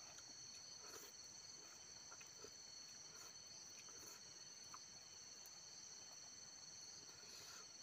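Faint, steady high-pitched trilling of crickets, with a few faint soft clicks scattered through.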